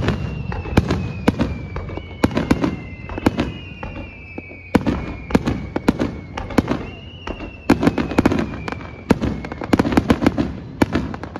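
Aerial fireworks shells bursting in a dense run of sharp bangs and crackles, several a second, with low booms rolling between them. A few long whistles slide slowly down in pitch over the bangs.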